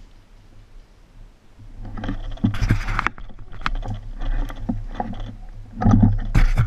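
Bramble leaves and stems rustling and scraping right against the microphone as it is pushed through blackberry bushes, starting about a second and a half in, with scattered small knocks and clicks. Loudest about two and a half seconds in and again near the end.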